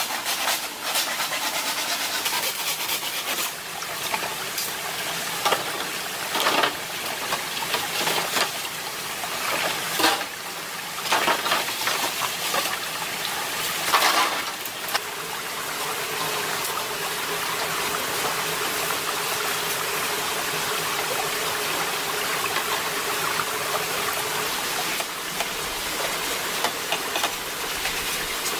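Steady rushing of running water, with sharp knocks and clatter of bamboo poles being handled through the first half.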